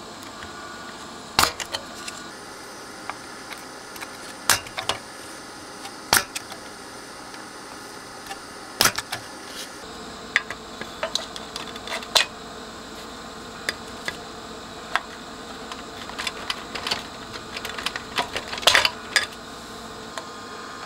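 Irregular sharp clicks and small knocks of desoldering work on an amplifier circuit board: a spring-loaded desoldering pump snapping as it fires, and metal tools knocking against the board and chassis.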